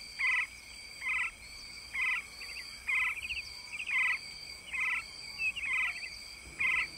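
Animal calls: a short, pitched call repeating about once a second, over fainter, longer high-pitched calls and a steady thin high tone.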